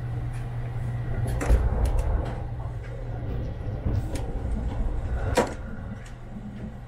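Metal lock lever on a sleeper-train compartment door being handled, giving a few sharp clicks and knocks, the loudest about a second and a half in and again near five and a half seconds. Under it runs the steady low rumble of the Sunrise Izumo sleeper train running.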